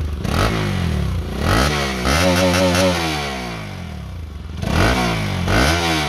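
Bajaj Pulsar RS 200's single-cylinder engine revved in several throttle blips, its note climbing and sinking back each time. The side muffler is removed, so it sounds only through the short underbelly exhaust stub.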